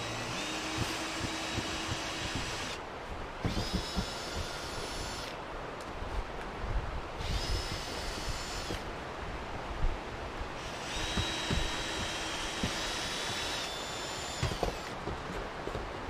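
Handheld power drill running in four bursts of about two seconds each, its whine spinning up at the start of each, with knocks and clunks between the bursts.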